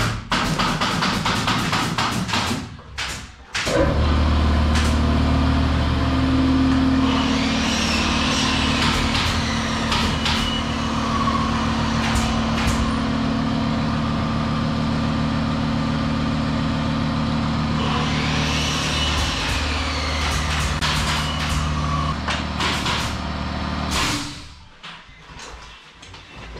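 Electric air compressor running with a steady low drone for about twenty seconds, then cutting off. A few seconds of loud, rough noise come before it starts.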